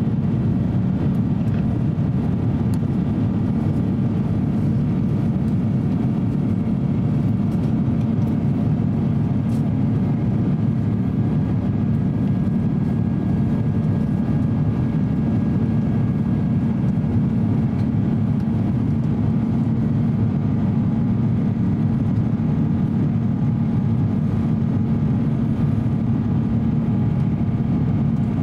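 Steady cabin noise inside an Airbus A350-900 in flight: a loud, even drone of its Rolls-Royce Trent XWB engines and rushing air, with a few steady hum tones above it.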